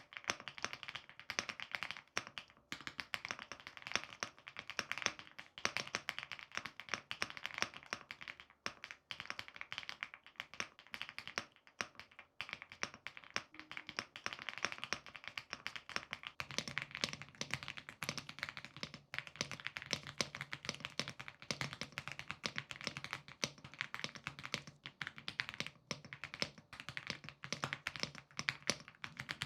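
Fast, continuous typing on a budget mechanical keyboard: a dense stream of key clacks, with a slightly deeper low note underneath from about halfway through.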